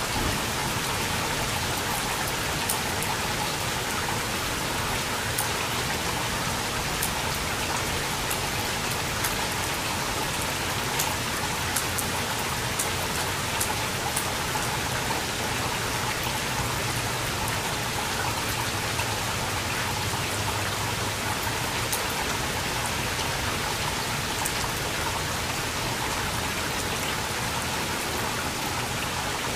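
Steady rain falling during a thunderstorm, a constant hiss with scattered sharp ticks of individual drops hitting nearby surfaces.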